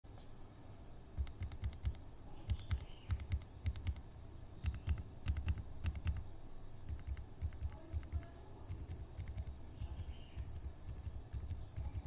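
Typing on a Zouya GMK67 mechanical keyboard fitted with Outemu Silent Toms silent tactile switches: quick runs of soft, dampened keystrokes. The strokes are louder in the first half and lighter after about seven seconds.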